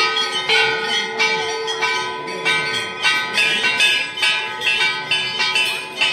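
Temple bells struck rapidly and repeatedly, about two to three strikes a second, each strike ringing on into the next.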